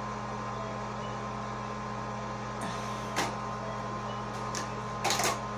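Steady low hum of room tone, with a couple of brief faint clicks or rustles about three seconds in and near the end.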